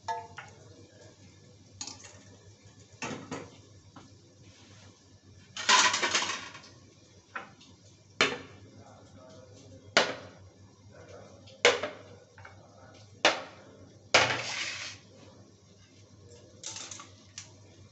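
A steel plate resting as a lid on a covered cooking pan, giving sharp metallic clinks every second or two. About six seconds in and again near the end there are two longer, noisier clattering bursts.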